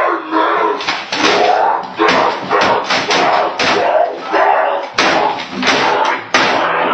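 Slowed-down recording of a boy yelling and banging on a computer keyboard: drawn-out shouts broken by repeated hard knocks about twice a second.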